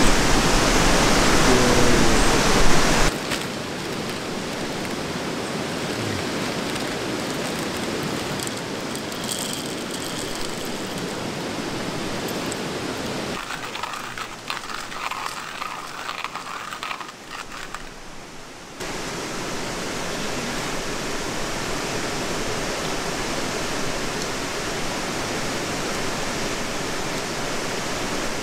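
Steady rushing of a mountain river running over stones, an even hiss of water. It drops in level about three seconds in and dips again partway through, where a run of faint clicks is heard.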